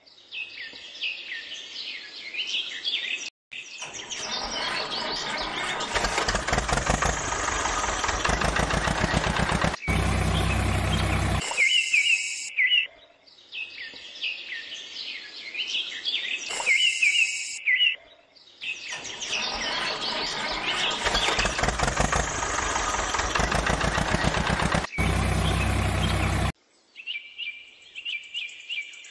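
Bird chirps alternating with longer stretches of a vehicle engine sound, the pattern repeating twice; each engine stretch ends in a brief deep steady tone.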